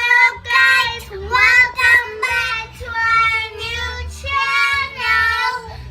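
A child singing a short melody in a high voice, with held notes that break every half second or so.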